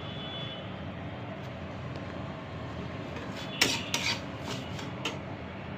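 A spoon scraping and knocking against a pan a few times, about three and a half seconds in, while stirring roasting semolina and cashews. Under it is a steady low hiss.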